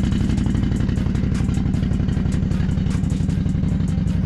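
Can-Am ATV engine running steadily under load while its buried front wheel churns in deep mud, with scattered sharp ticks over the engine note.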